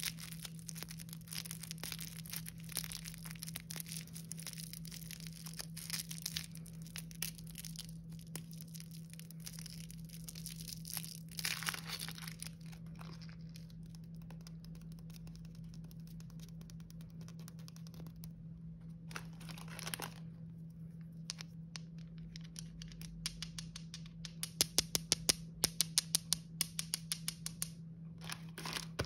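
Crinkling, tearing plastic wrapper of a Chupa Chups lollipop being unwrapped by hand, dense and crackly for about the first twelve seconds, then falling quiet. A few seconds before the end comes a fast run of sharp clicks, the loudest sounds here. A steady low hum runs underneath.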